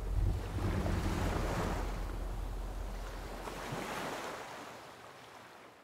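Ocean surf and wind with a deep low rumble underneath, starting suddenly and slowly fading out.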